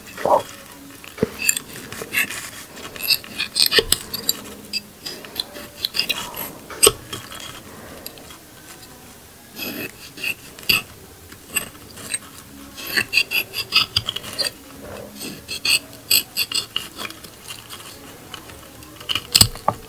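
A small knife scraping and cutting along a spiny cactus stem, trimming off the spines: crisp scratching and clicking in short bursts, with quieter spells between.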